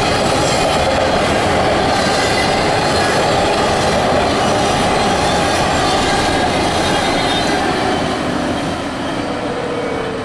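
Intermodal freight train's container cars rolling past, a steady loud rumble and clatter of steel wheels on rail that gets quieter near the end.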